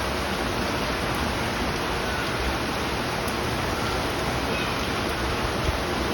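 Heavy rain pouring down, a steady, unbroken hiss of falling water.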